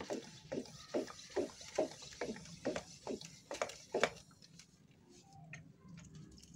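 Hand pump of a handheld pressure sprayer bottle being worked up and down, building air pressure in the bottle: about ten even pump strokes, a little over two a second, each a short rasp. The pumping stops about four seconds in.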